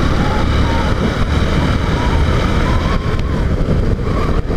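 Motorcycle engine running at a steady cruise, with wind rushing over the rider's microphone.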